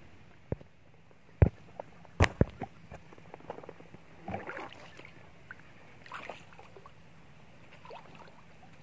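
Several sharp knocks and lighter clatter of gear against a small boat, the loudest knocks about a second and a half to two and a half seconds in, with some water sloshing as the boat is handled.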